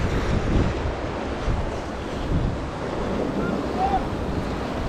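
Wind buffeting the microphone, a fluttering low rumble, over sea waves washing against shoreline rocks.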